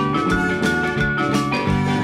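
Background music with a steady beat of about two strokes a second under held melodic notes.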